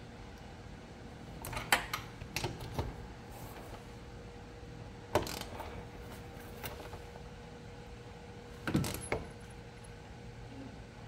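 Several separate metallic clicks and knocks from a hand tool working a bolt on a Honda PCX scooter's engine casing.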